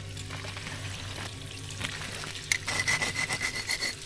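Metal tongs scraping and tapping across the crisp, crackled skin of a roasting pork belly: a dry rasping run of quick scrapes with a faint metallic ring, starting about two and a half seconds in.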